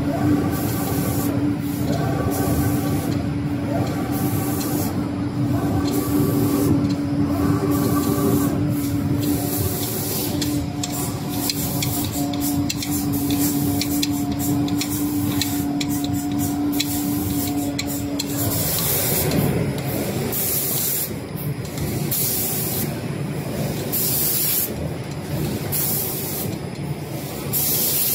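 Automatic cabinet-door spray-painting machine running: its spray guns hiss in repeated bursts of atomising air over a steady machine hum. The hum stops about two-thirds of the way through, leaving the hiss.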